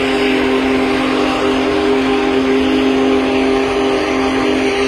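Steam locomotive's chime whistle held in one long, steady blast, several notes sounding together over an airy hiss.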